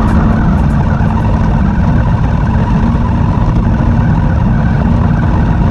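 Radio-controlled car driving over coarse asphalt, heard from a camera mounted on the car itself. A loud, steady rumble of its wheels and drivetrain on the rough surface.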